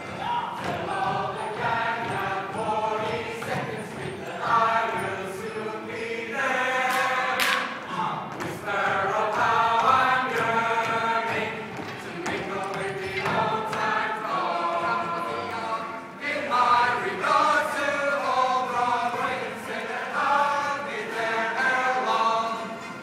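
A large group of voices singing together in chorus, a musical-theatre ensemble number sung in phrases with short breaks between them.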